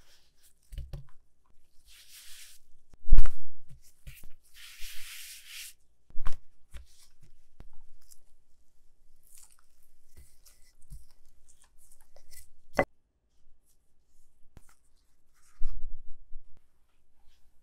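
Kitchen handling sounds: two short tearing rustles in the first six seconds, then scattered knocks and taps, the sharpest a ringing tap about two-thirds of the way through.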